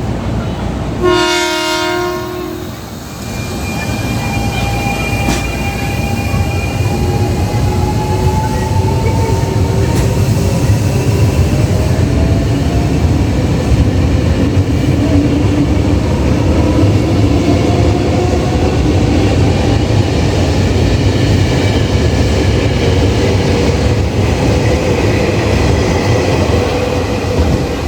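Tokyo Metro 6000 series electric commuter train sounding its horn once, a single blast of about a second and a half just after a second in. The train then runs past with a steady rumble of wheels on rails and slowly shifting whines over it.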